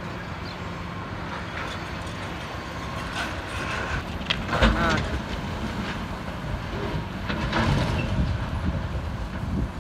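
Kobelco hydraulic excavator running steadily while its arm tears into a building, with crashes and scraping of breaking debris, loudest just under five seconds in and again near eight seconds.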